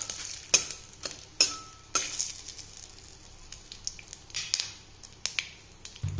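Panch phoron, dry red chillies and bay leaves sizzling in hot oil in a metal kadhai, the whole spices crackling with scattered pops. A metal spatula scrapes and taps the pan a few times in the first two seconds.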